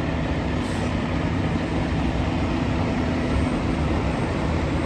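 Steady low engine rumble with an even hum, like a heavy vehicle running at a constant speed.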